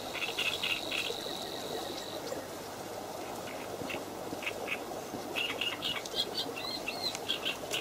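Outdoor natural ambience: small birds chirping on and off, more busily in the last few seconds, over a soft even background noise. A thin, steady high whine runs for about the first two seconds.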